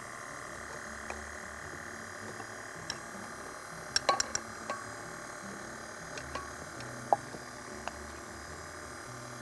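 Stand mixer running steadily at low speed as flour is added a little at a time, with a few sharp clinks about four seconds in and again around seven seconds.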